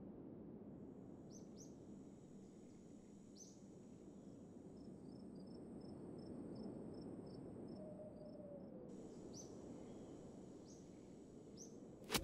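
Faint outdoor nature ambience: a steady high insect trill and a run of quick high pulses, with short rising bird chirps now and then, over a low hiss. A sharp click near the end.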